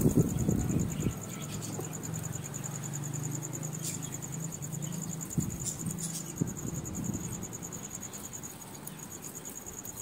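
A high, steady, rapidly pulsing insect trill runs throughout. Under it, domestic pigeons coo low from about a second in to about six seconds, with a few faint taps.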